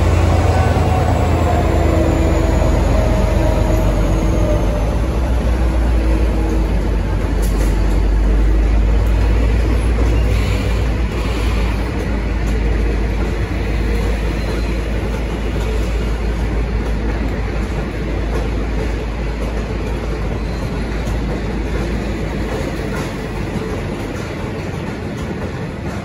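V/Line N class diesel-electric locomotive (EMD 12-cylinder two-stroke diesel) passing under power, a deep engine rumble with a falling whine in the first few seconds, then its passenger carriages rolling past on the rails and slowly fading as the train pulls away.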